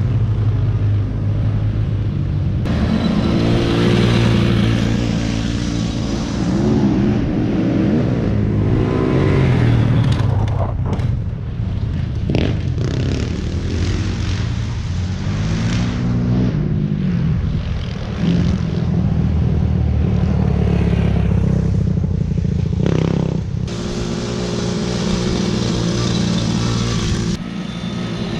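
Quad bike (ATV) engines running and revving, pitch rising and falling as the riders speed up and slow down on dirt, with a few abrupt changes in the sound where clips are cut together.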